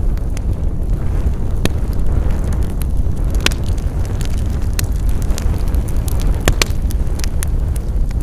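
Wood fire burning: a steady low rumble of flames with sharp crackles and pops of burning wood scattered throughout, a few of them loud.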